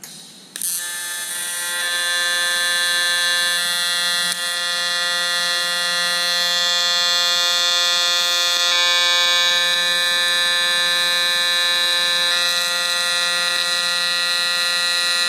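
AC TIG welding arc on 6061 aluminum from a Lincoln Electric Aspect 230, struck about half a second in and then buzzing steadily, its pitch set by the 175 Hz AC frequency with auto balance on.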